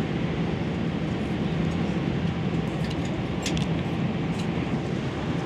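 Steady roar of an airliner cabin in flight, the engine and airflow noise with a low hum under it. A few faint light clicks about three and a half seconds in.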